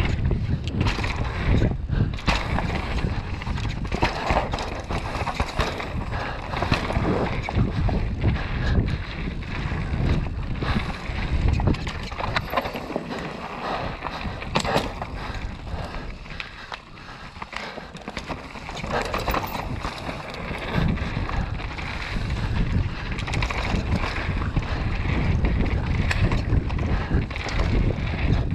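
Downhill mountain bike ridden fast on a dirt forest trail, heard through a GoPro Hero 7: wind buffeting the microphone, tyres rolling over dirt and roots, and frequent knocks and rattles of the bike over bumps. It goes quieter for a couple of seconds around the middle.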